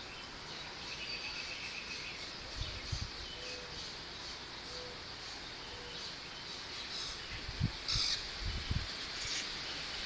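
Outdoor tree-canopy ambience: a steady high insect drone and the hiss of leaves in the wind. A short bird trill comes about a second in and brief bird chirps near the end. A few low thumps come a little before the middle and again near the end.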